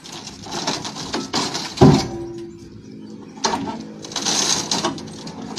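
A single heavy thump a little under two seconds in, with a short low ringing after it, amid a rough background of outdoor noise.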